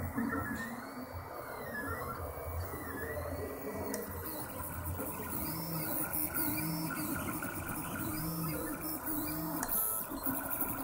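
Felix 2.0 3D printer's stepper motors whining as the print head moves, in short tones that change pitch with each move, some rising and falling in arcs, over a steady mechanical hum.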